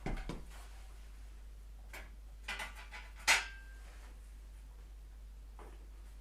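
A few scattered knocks and clinks of tools and metal parts being handled. The loudest is a sharp metallic clank with a brief ring a little past three seconds in.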